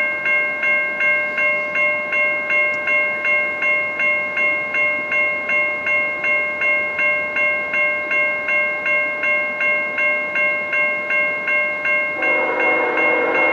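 Railway grade-crossing warning bell ringing steadily at about two and a half strikes a second as a train approaches. About 12 seconds in, the lead diesel locomotive's air horn sounds a chord over the bell.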